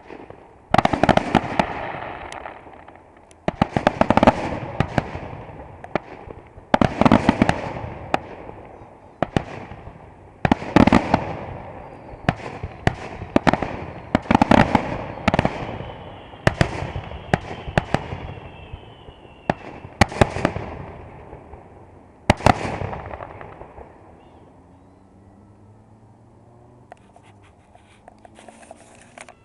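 Consumer aerial fireworks bursting: a rapid series of sharp bangs, one every second or two, each trailing off into crackle. The barrage stops about three-quarters of the way through, leaving only faint background.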